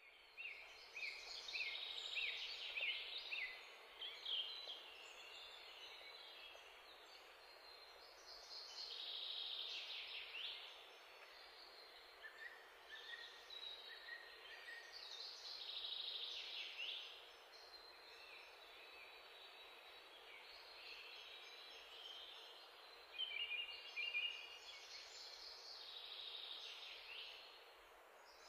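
Birds singing in faint chirps and short trills, phrase after phrase every few seconds, over a steady hiss.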